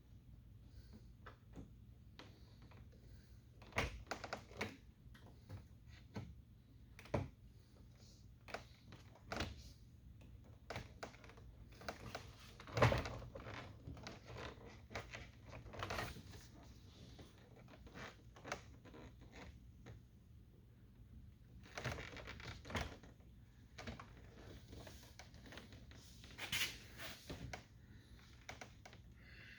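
Irregular clicks, taps and knocks of door trim being pressed and pried over its lip on a pickup truck door, with the loudest knock about halfway through.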